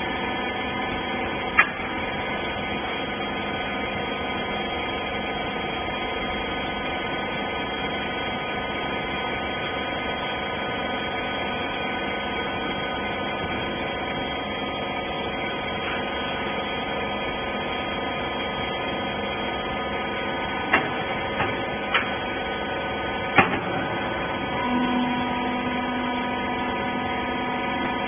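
Horizontal bagging baler's hydraulic power unit running with a steady, many-toned machine hum. A few sharp clicks or knocks come close together in the last third, and a second steady tone joins the hum near the end.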